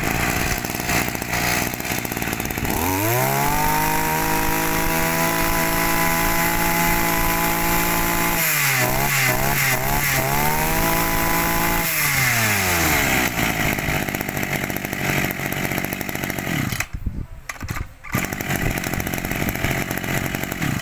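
Small two-stroke engine of a used Japanese brush cutter being test-run: the throttle opens about three seconds in and the engine revs up and holds at high speed, is blipped up and down a few times around the middle, then drops back to idle about twelve seconds in.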